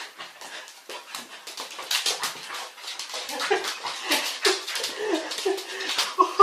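A dog whimpering and whining in excited greeting, a run of short high cries that starts about halfway through, over a patter of clicks and scuffles.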